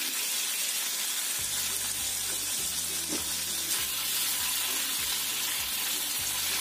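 Sliced raw chicken sizzling steadily in hot oil and garlic in a wok, stirred and scraped with a wooden spatula.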